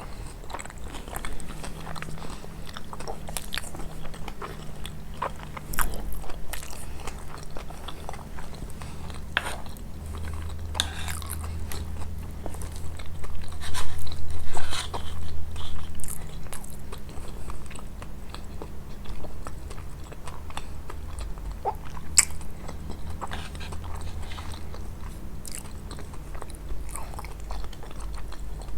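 Chewing and crunching of kunafa, crisp shredded-pastry dessert with Nabulsi cheese, with many small crackles and a louder stretch of chewing midway.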